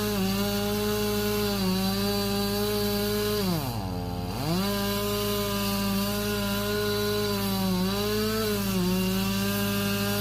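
Two-stroke chainsaw running at full throttle, cutting wood, with a high, steady engine note. About four seconds in, the revs fall away briefly and then climb back. The pitch dips a few times as the chain bites.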